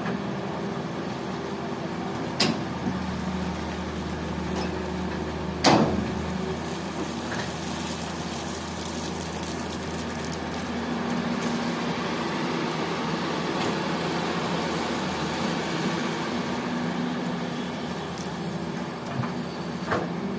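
Heavy diesel engines of dump trucks and an excavator running steadily, with sharp knocks about two and a half seconds and six seconds in, the second the loudest, and a smaller one near the end.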